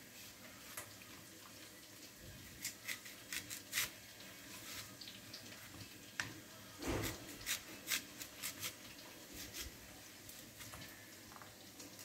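Kitchen knife slicing through a raw red onion: a run of faint, irregular crisp cuts and small taps, with one louder knock about seven seconds in.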